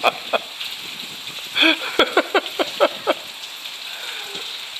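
Steady rain falling. About a second and a half in, a person's voice gives a quick run of short sounds lasting about a second and a half.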